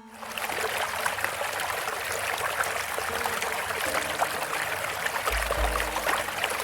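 Running, trickling water with many small crackles, with soft music notes coming in underneath about four seconds in and a deep bass note starting about a second later.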